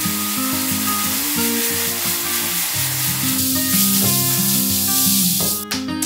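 Water spraying from a handheld shower head onto air-conditioner filters, a steady hiss that stops shortly before the end, over instrumental background music.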